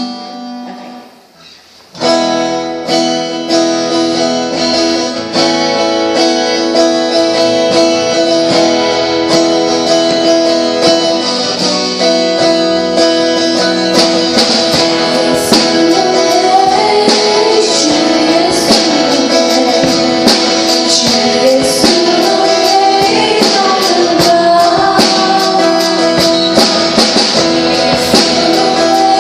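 A live worship band starts a song about two seconds in, led by strummed acoustic guitar with other instruments. Singing comes in partway through.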